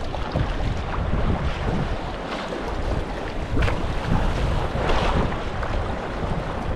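Fast river water rushing and splashing around a kayak as it runs through a riffle, with a few sharper splashes from the paddle. Wind buffets the microphone with a low rumble.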